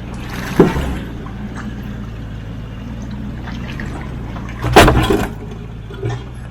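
A 4WD's engine runs low and steady while crawling through a rocky creek, with two loud, short bangs, one about half a second in and one near five seconds, and a smaller one just after.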